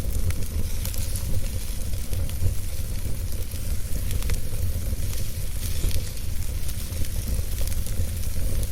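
Wood fire crackling: a low steady rumble of burning with frequent small irregular pops and snaps.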